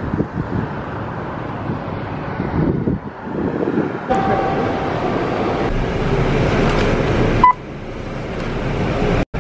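Steady traffic and wind noise, growing louder and brighter about four seconds in as a vehicle rumble. Near the end comes a single short electronic beep from a bus fare card reader at check-in.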